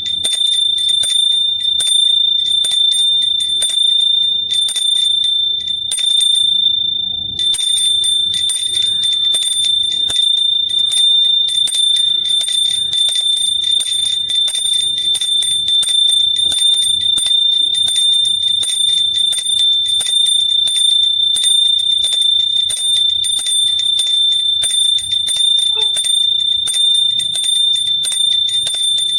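Small hand bell rung continuously and fast, the clapper striking many times a second so one high ring never dies away. The rapid strikes drop out briefly about seven seconds in while the ring carries on.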